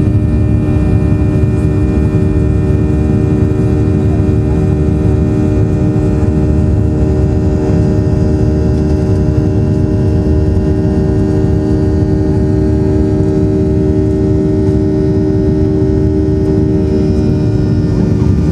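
Boeing 737-800's CFM56-7B jet engines running, a loud steady drone with several held tones over a deep rumble.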